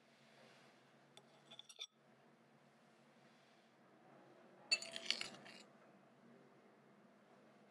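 Metal egg-separator spoon clinking against a glass mixing bowl while scooping up an egg yolk: a few light taps about a second and a half in, then a louder cluster of ringing clinks about five seconds in.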